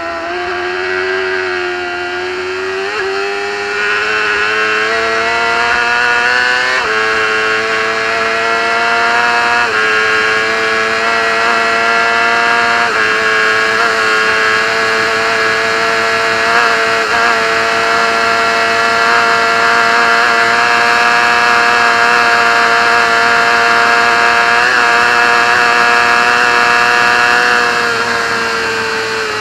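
Racing motorcycle engine heard onboard at high revs, with a steady rush of wind. The engine note rises over the first few seconds and jumps up in pitch once, then holds nearly level with a few brief dips before falling away near the end.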